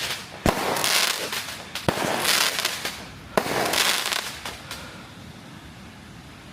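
Fireworks going off: three sharp bangs about a second and a half apart, each set in a whooshing, crackling hiss, dying away over the last couple of seconds.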